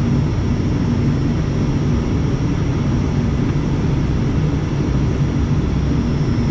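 Cockpit noise of an ATR 72-600 turboprop airliner on final approach: the steady low drone of its two Pratt & Whitney PW127M turboprop engines and propellers, with a constant low hum and no change in power.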